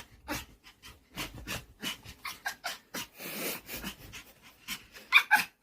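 Puppy making a rapid run of short, breathy panting and huffing noises, the strange sounds it makes while impatient for a treat.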